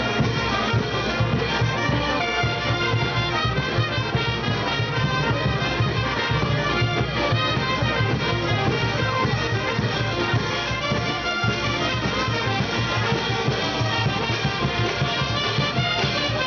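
Peruvian village brass band with sousaphones playing dance music live: brass melody over a steady, strong bass, without a break.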